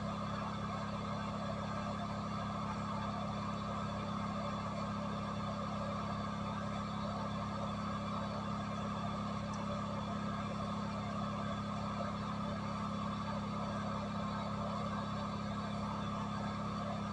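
Hot air rework station blowing steadily through its handpiece nozzle: a constant airflow hiss with a low fan hum. The hot air is heating a new eMMC chip on a Redmi 2 board until it starts to solder in place.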